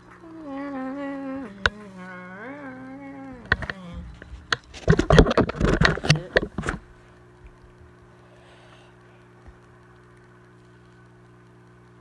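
A person's wordless voice held for about four seconds, wavering and sliding down in pitch. Then about two seconds of loud rustling and knocking as the plastic Dimorphodon toy figure is handled close to the microphone. After that only a faint steady hum remains.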